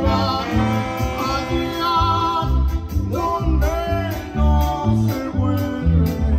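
Live band music: clarinets play a gliding melody over a bass line that pulses in a steady beat.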